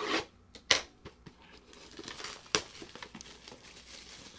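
Plastic shrink-wrap crinkling as a wrapped booster box is handled, in several sharp crackles with softer rustling between.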